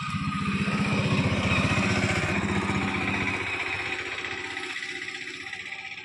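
A small-engined motor vehicle passing close by on the road: its engine grows loud right at the start, is loudest about a second or two in, then fades away as it moves off.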